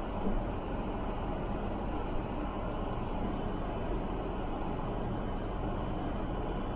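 Car driving, heard from inside the cabin: a steady low engine and road noise.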